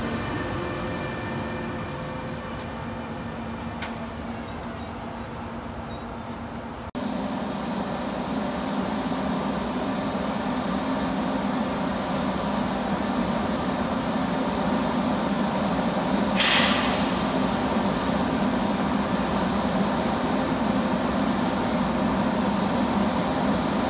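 E402B electric locomotive rolling slowly past close by, then, after a cut, standing at the platform humming steadily with its fans running. A short, sharp hiss of released air about 16 seconds in.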